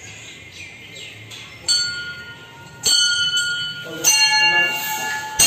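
Temple bell struck four times, about a second apart, each strike ringing on with several steady tones until the next.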